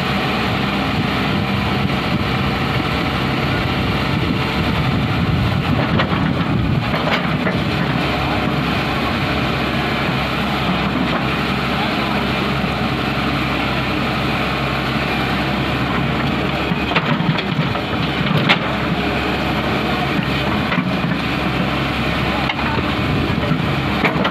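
Hyundai crawler excavator's diesel engine running steadily under load while it digs soil, with a few sharp knocks from the bucket and arm about a third of the way in and again near three-quarters.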